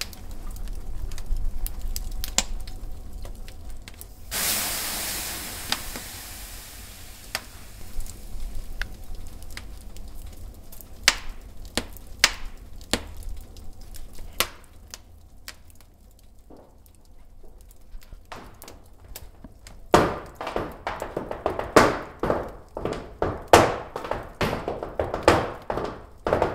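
Water thrown on hot sauna stones hisses a few seconds in and fades over about three seconds. Scattered sharp knocks follow, and near the end they build into a quick run of loud strikes from flamenco shoes stamping on the wooden sauna floor.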